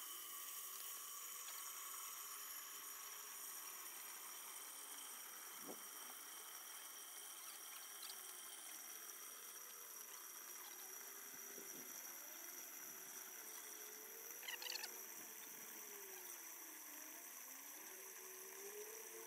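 Water from a garden hose jetting into a partly filled glass aquarium, a faint steady splashing rush.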